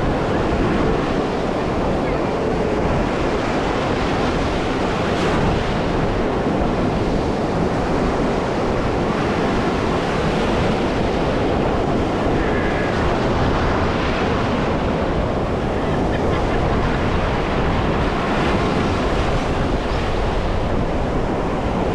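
Sea surf washing onto a beach, a steady rush, with wind buffeting the microphone.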